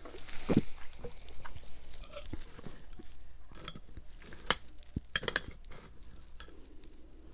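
Ice being bitten and crunched close up: a scatter of sharp cracks and snaps, bunched together from about three and a half to five and a half seconds in.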